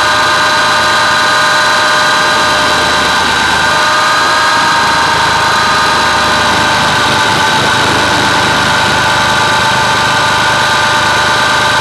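On-board sound of a Hurricane 550 radio-controlled helicopter in flight: a steady, loud whine of several held tones from the motor and rotor drive over a constant rushing noise.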